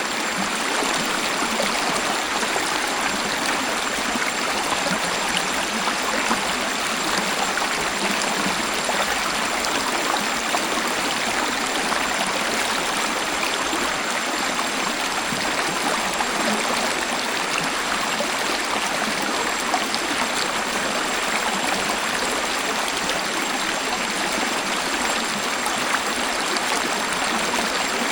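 Waterfall water falling and splashing in a steady, even rush with little bass.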